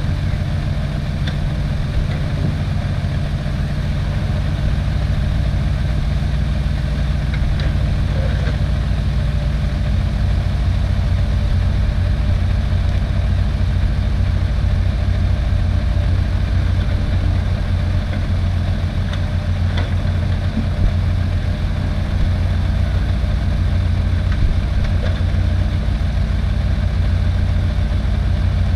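Diesel engines of a Komatsu mini excavator at work and a six-wheel dump truck idling beside it, a steady low drone whose pitch shifts slightly about a third of the way through, with a few faint knocks.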